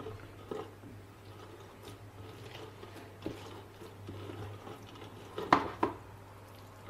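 Fingers squishing wet tomato and red pepper pulp against a perforated stainless-steel strainer, with soft scattered wet ticks and two sharper taps on the metal about five and a half seconds in. This is the strained-off pulp of skins and seeds left from homemade tomato-pepper paste being pressed out.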